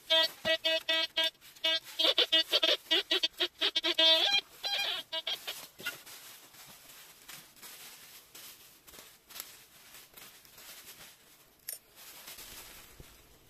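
Metal detector sounding a rapid string of short beeping tones for about five seconds as its search coil passes over a buried target, the tone changing pitch near the end. After that, soft rustling of dry leaves and soil as a hand brushes through them.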